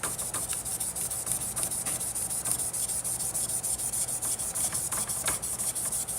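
Fine 2000-grit sandpaper rubbed by hand over a fishing-rod blank in quick, even back-and-forth strokes, scuffing the gloss off so the epoxy will grip.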